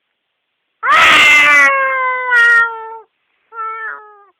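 Domestic cat on catnip meowing loudly: one long drawn-out meow falling slowly in pitch, then a shorter meow near the end.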